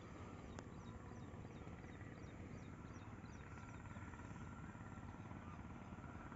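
Faint outdoor ambience with a run of short, high chirps. A faint steady drone comes in near the end.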